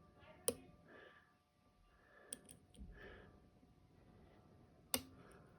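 Dimple lock being picked: a pick scraping softly inside the keyway of a worn Dom IX 5kg cylinder, with a few sharp metallic clicks, the loudest just before the end.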